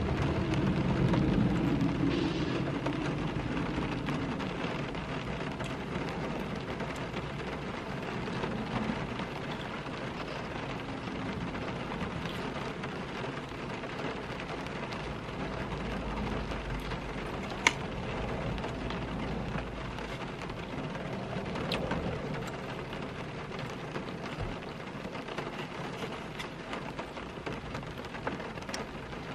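Steady rain falling on a car's roof and windows, heard from inside the cabin, with a sharp click about eighteen seconds in.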